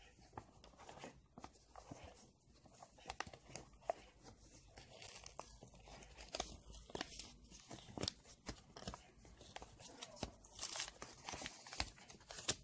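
Paper crinkling and tearing as fingers peel open a small folded paper packet, faint, with scattered sharp crackles.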